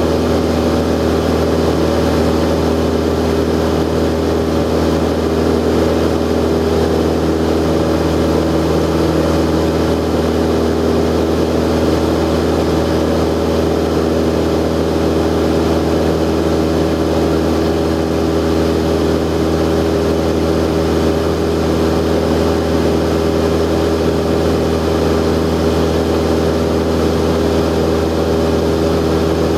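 Cessna 172's piston engine and propeller droning steadily in cruise, heard inside the cabin: a loud, unchanging hum with several steady tones.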